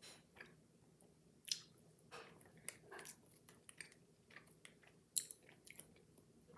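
A person chewing soft, gummy Sour Patch Kids Extreme candy close to the microphone: faint, irregular mouth clicks and chewing sounds.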